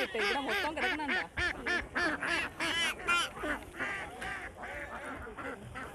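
Ducks quacking in a quick run of short calls, several a second, thinning out and growing fainter over the last couple of seconds.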